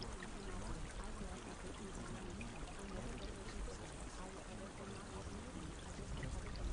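Steady sound of running water, like a continuous pour or stream, even throughout, with faint wavering tones beneath it.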